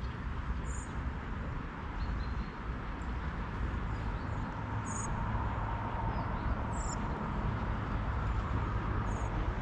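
Steady outdoor background rumble and hiss, with a few short, high bird chirps scattered through it.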